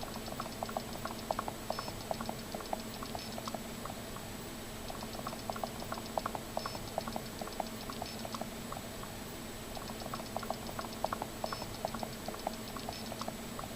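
Plastic Marx ramp walker toy of Top Cat and Benny the Ball stepping down its ramp, its feet tapping in quick, light clicks. The clicking comes in three runs, with short pauses between them, over a steady low hum.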